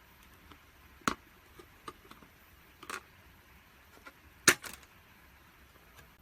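A few sharp plastic clicks and knocks from handling an auto-darkening welding helmet: one about a second in, smaller ones near two and three seconds, and the loudest as a quick double click about four and a half seconds in.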